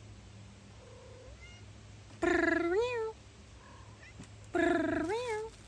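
Domestic cat meowing twice: two long, loud meows about two and a half seconds apart, each bending up and back down in pitch at its end.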